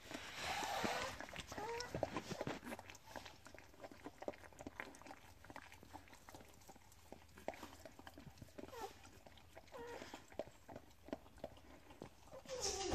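Springer spaniel bitch licking and nuzzling her newborn puppy: soft, wet licking and mouth clicks. A few brief squeaks come from the newborn puppy, with a louder falling cry near the end.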